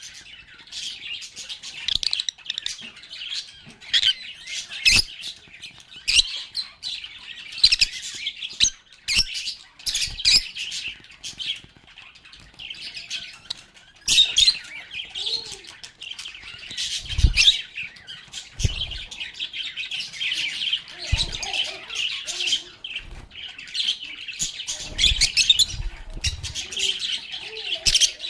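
A flock of lovebirds chattering nonstop with rapid high chirps and squeaks, with scattered short clicks and knocks among them.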